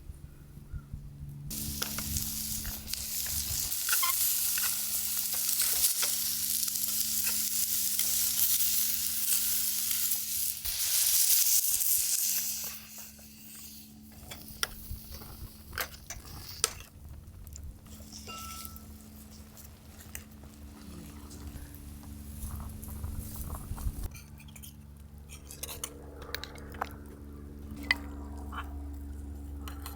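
Food sizzling on a hot cooking surface. It starts about a second and a half in, stays loud for around ten seconds, then dies down to a quieter sizzle with scattered light clicks and taps.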